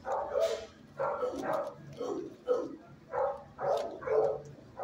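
Shelter dog barking repeatedly, about two barks a second, in a kennel area.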